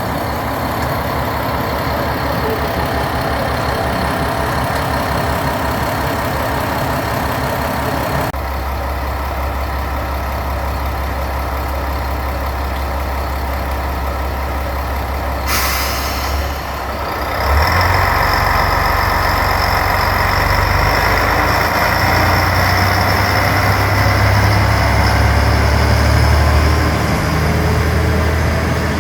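JR Shikoku 1000-series diesel railcar's engine idling with a steady low beat. Past the middle comes a short hiss of air, and then the engine throttles up and grows louder as the railcar pulls away.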